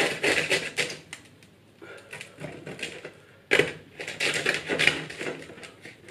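Kitchen knife sawing through the crisp crust of a baked baguette: an irregular crunchy rasping, quieter at first, with a sudden louder stretch of strokes from about three and a half seconds in.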